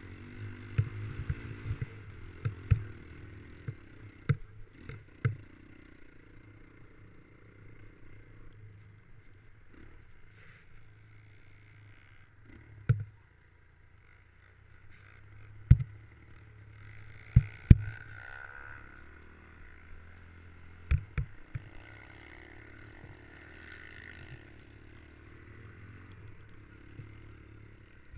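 Snowmobile engine running steadily under way, heard from the rider's own machine, with sharp knocks every few seconds as it jolts over bumps in the snow. A little past halfway the engine pitch swings up and down briefly.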